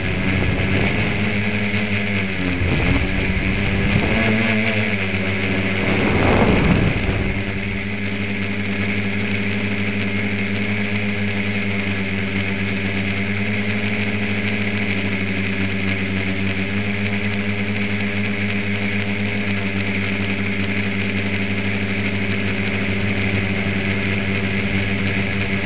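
Tricopter's electric motors and propellers whirring in flight. The pitch wavers up and down with throttle changes over the first several seconds, with a brief louder rush of air about six seconds in, then settles into a steady hum.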